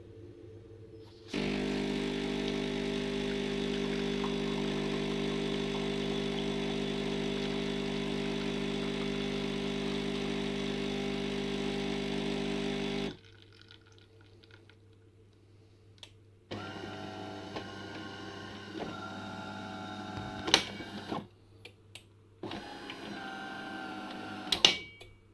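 Automatic bean-to-cup coffee machine running with a loud, steady mechanical hum for about twelve seconds, then stopping suddenly. Quieter whirring with steady higher tones follows in two stretches, with a few sharp clicks.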